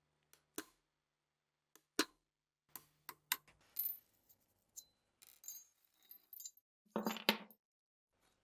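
Small metal gun parts being handled, giving a series of sharp clicks and clinks with a brief metallic ring in the middle, then a louder clatter about seven seconds in.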